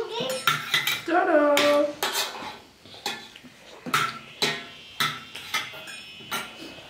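Metal spoons clinking and scraping against steel bowls and brass plates, a string of sharp irregular clinks.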